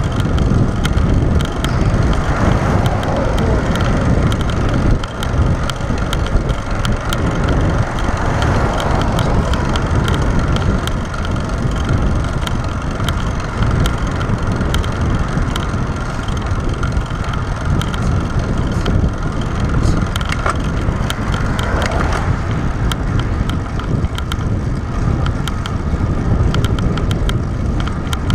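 Wind buffeting the microphone of a handlebar-mounted action camera on a road bicycle at speed, a steady loud rumble mixed with the hum of the tyres on asphalt and many small ticks.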